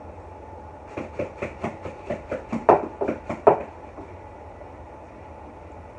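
Eating sounds close to the microphone: a quick run of about a dozen crisp clicks and crunches, about four or five a second for two and a half seconds, the last few loudest.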